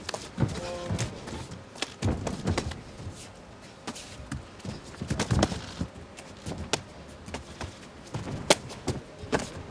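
Fight sounds from a Muay Thai bout in a cage: scattered thuds and knocks of strikes landing and bare feet on the canvas, the loudest a little past the middle, with a short shout about a second in.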